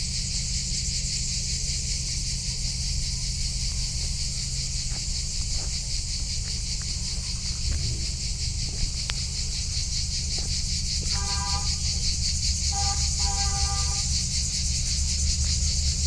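Steady, high, shrill chorus of insects in the trees, pulsing rapidly, over a constant low rumble. About two-thirds of the way through, a short pitched call sounds twice.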